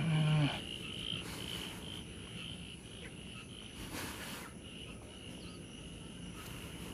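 Steady chorus of insects and frogs, a continuous high-pitched trilling, opening with a brief low-pitched sound.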